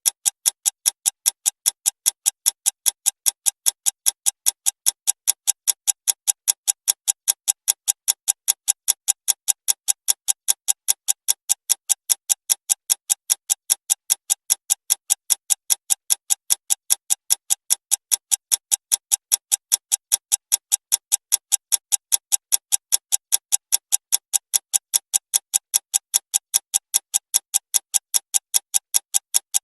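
Clock ticking fast: a steady run of evenly spaced, sharp, slightly ringing ticks, about three a second, at an even level.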